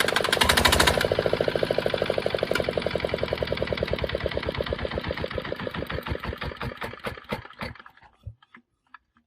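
Restored diesel engine running with a fast, even knock, then shut off: the knocks slow down and fade until the engine stops about eight seconds in.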